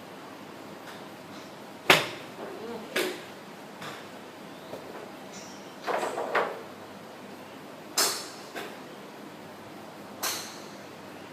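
A series of sharp, short impacts at irregular intervals about one to two seconds apart, each with a brief ringing tail, the first the loudest, with a few fainter clicks between them.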